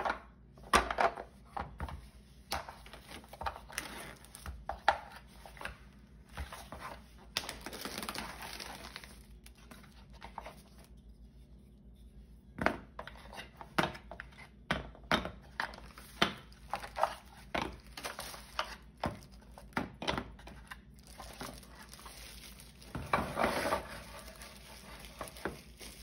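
Plastic wrap crinkling as it is peeled off a small tic-tac-toe set, with the game pieces clicking and clattering as they are handled and set down on a table. Longer bursts of crinkling come about eight seconds in and again near the end.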